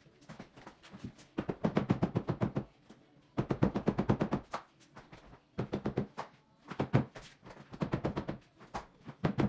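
Runs of rapid sharp clicks, about eight to ten a second, coming in several bursts with short pauses between them.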